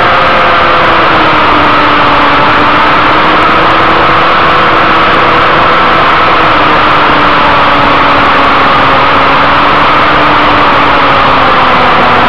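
Inline-four sport bike engine held at high revs under way, heard from onboard through heavy wind rush on the microphone. The engine note stays steady and sinks slowly in pitch.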